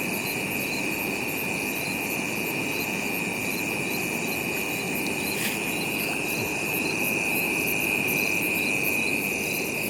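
Chorus of night insects: a steady high-pitched drone with quicker, evenly repeating chirps above it, over a constant low rushing noise.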